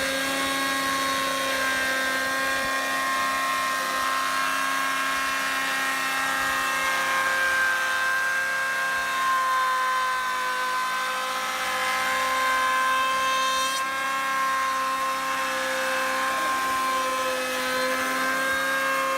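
A power tool's motor running steadily, a constant whine with several pitched overtones that barely waver.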